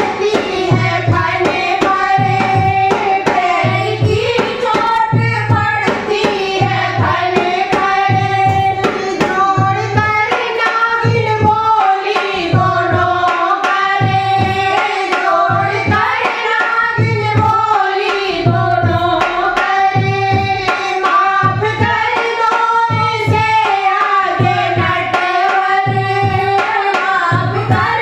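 Group of women singing a Hindi devotional bhajan together, over a steady hand-drum beat of about one stroke a second, with hand clapping.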